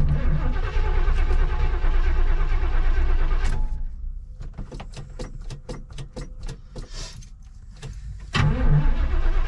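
Chevrolet Camaro's starter cranking the engine for about four seconds without it catching, then a pause filled with a quick run of light clicks, then cranking again near the end. The car is hard to start and won't fire.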